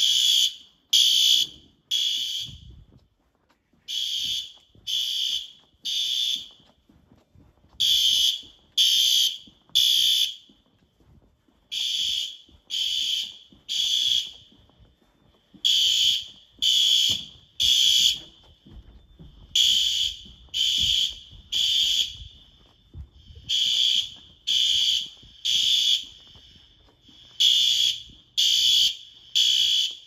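System Sensor SpectrAlert Advance fire alarm horns sounding the temporal-three evacuation pattern. It goes as three short, high-pitched blasts about a second apart, then a pause, with the cycle repeating every four seconds.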